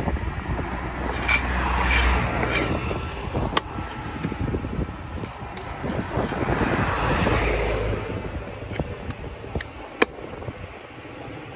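Road traffic passing twice, swelling and fading, over a large knife scraping scales off a tilapia and knocking on a wooden chopping block. One sharp knock of the blade on the block near the end.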